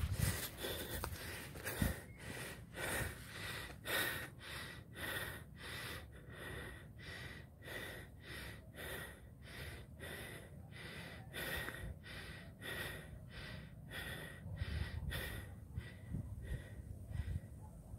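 A person panting hard close to the microphone, about two breaths a second, winded from the steep climb up the hill, over a low wind rumble.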